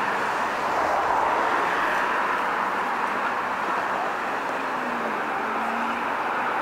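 Street traffic with an Aston Martin DB11 driving slowly past: a steady engine-and-tyre noise, the engine pitch rising slightly about five seconds in.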